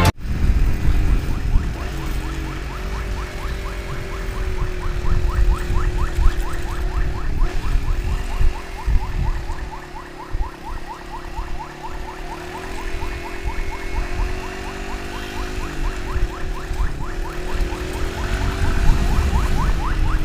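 Ambulance siren on a fast yelp: short rising wails repeating several times a second, over the low rumble of a moving motorcycle and wind.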